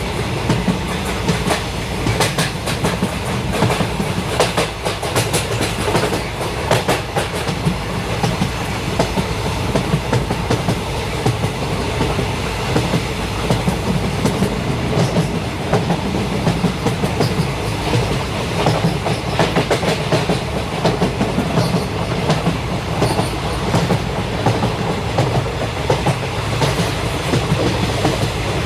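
A train running along the track, a steady rumble with the wheels clicking repeatedly over the rails.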